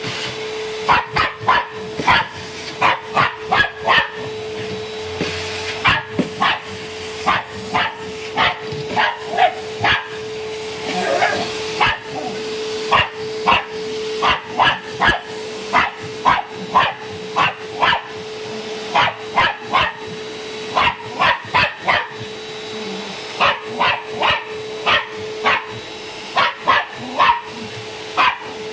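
A dog barking at a running vacuum cleaner: dozens of short sharp barks in quick runs with brief pauses, over the vacuum motor's steady hum.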